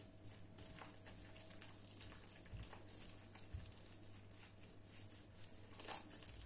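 Faint, soft rustling and squishing of a hand mixing flour into a wet bread dough in a glass bowl, with a few soft knocks.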